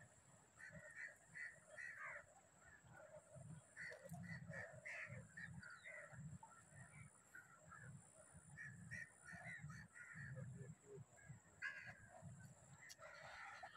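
A flock of birds calling: many short calls overlapping and scattered throughout, over a faint low rumble.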